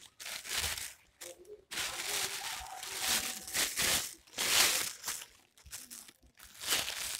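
Thin white plastic of a rice sack crinkling and rustling as hands gather and pinch it closed, in several bursts, loudest about halfway through.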